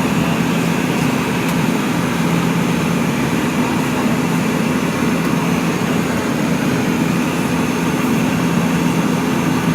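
Airliner cabin noise in flight: a steady engine and airflow drone with a constant low hum.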